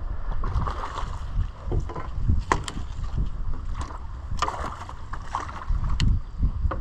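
A hooked fish splashing at the water's surface while a landing net is dipped in to scoop it, with wind buffeting the microphone and a few sharp knocks.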